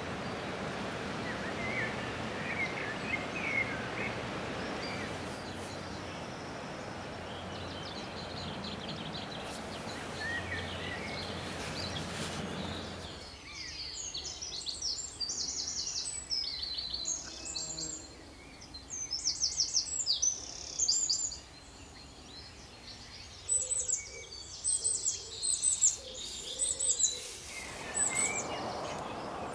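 Small birds chirping in quick, high-pitched twitters over a steady rushing background noise. About 13 seconds in the rushing drops away and the chirps stand out clearly, then the rushing comes back near the end.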